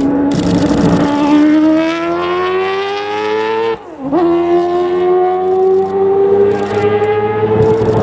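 Mazda 787B's four-rotor rotary engine accelerating, a high wailing note rising steadily in pitch. About halfway through it dips briefly and drops in pitch at a gear change, then climbs again.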